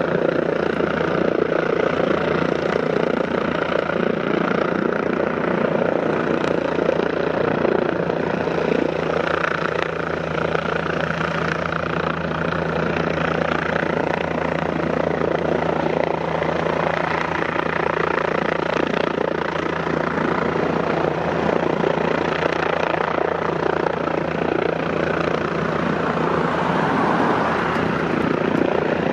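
AgustaWestland AW169 helicopter hovering with a training weight slung on a long line: the rotors and turbine engines run steadily at an even level.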